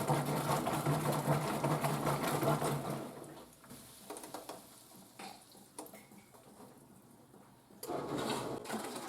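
Top-load washing machine agitating: a motor hum with water churning in the tub, which winds down about three seconds in to a quiet stretch with a few faint clicks. A steady rushing noise starts again suddenly near the end.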